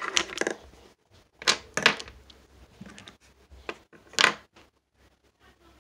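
Plastic felt-tip markers clicking and clattering against each other and the tabletop as they are set down and arranged by hand: a few short, irregular knocks.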